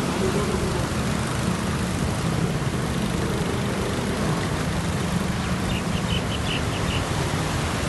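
Car engine running steadily while the tyres push through floodwater on a flooded road, heard from inside the car.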